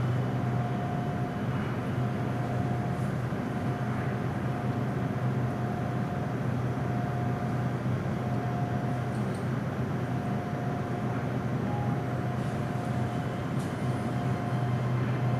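SRT Red Line electric commuter train running: a steady low hum and rumble with a mid-pitched motor whine that breaks off briefly now and then. The train is on a speed restriction after thieves cut its signalling cables.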